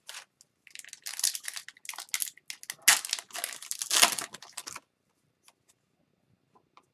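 Foil-lined Upper Deck hockey card pack wrapper being torn open and crinkled in the hands. The crinkling starts about a second in and stops just before the five-second mark, followed by a few faint ticks of cards being handled.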